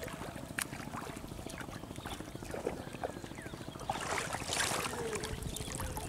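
Cast net being hauled through shallow river water, the water swishing and splashing, loudest in a hissing splash about four seconds in. Scattered faint chirps sound over it.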